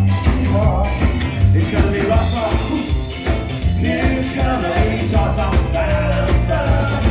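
Ska band music playing loudly, with a sung vocal over drums and bass on a steady beat.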